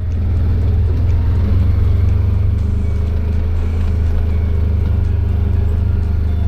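A motor vehicle's engine running close by, a loud, steady low rumble that swells in about half a second in and eases off just after the end.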